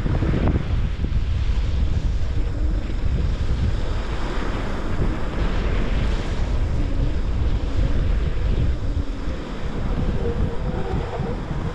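Wind buffeting a GoPro microphone during a fast run down a groomed ski slope, a steady low rumble, with the hiss and scrape of the rider's edges on packed snow swelling and fading through the turns.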